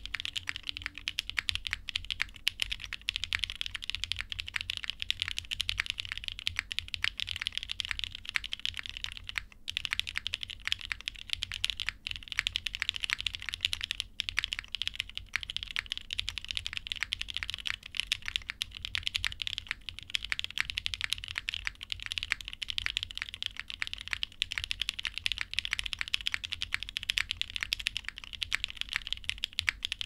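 Continuous typing on a Mekanisk Klippe T mechanical keyboard with lubed NK Launch Cream linear switches, gummy o-ring mounted on a full aluminium plate, with GMK keycaps. Rapid, dense keystrokes with brief pauses about ten and fourteen seconds in.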